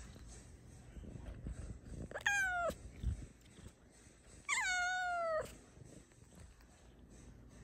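Bengal cat meowing twice: a short meow about two seconds in, then a longer meow that starts high and falls in pitch. A soft low bump comes between them.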